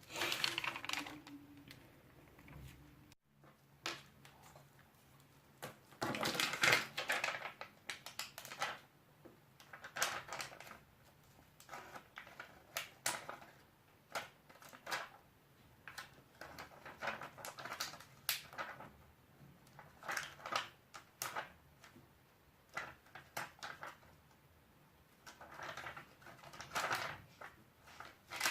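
Scissors snipping through fabric with rustling of the cloth, in irregular clicks and short scrapes. The sound drops out abruptly for a moment about three seconds in.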